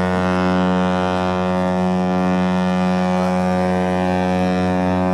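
Cruise ship horn sounding one long, steady, deep blast.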